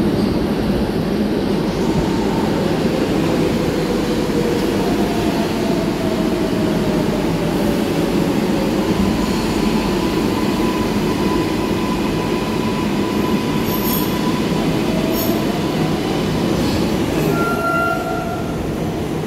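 New York City Subway 7 train of R188 cars pulling into an underground station and braking to a stop. A heavy, steady rumble of steel wheels on rails runs under thin tones that glide down in pitch as the train slows, with two sharp clicks about two-thirds of the way through and brief squealing tones as it halts near the end.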